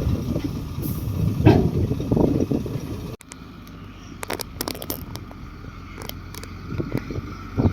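Komatsu D58 crawler bulldozer working, its engine running loud and low. Just after three seconds the sound cuts off abruptly to a quieter stretch with a faint steady whine and scattered clicks.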